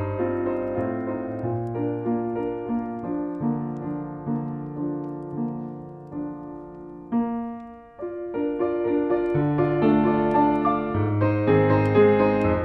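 Piano music, a slow melody over sustained chords. It thins out briefly about seven seconds in, then comes back fuller and louder.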